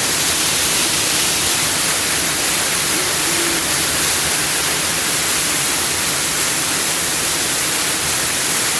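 Waterfall rushing with a steady, loud hiss of falling water.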